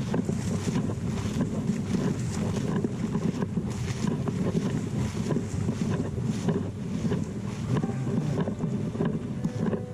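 Wind buffeting the microphone: a steady low rumble with constant small gusts.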